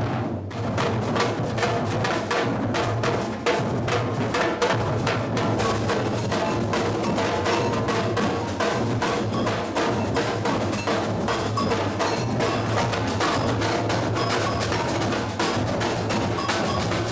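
Batucada drum group playing samba percussion: a steady pulse of deep bass drums under dense, rapid snare and other percussion strokes, starting about half a second in.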